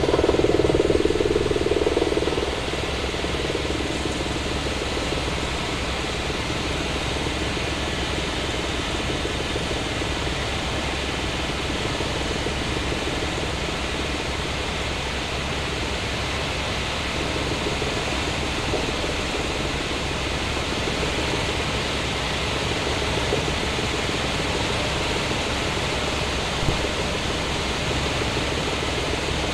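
Helicopter cabin noise heard from the front passenger seat: a steady rushing drone of engine, rotor and airflow with a constant low hum, louder for the first couple of seconds.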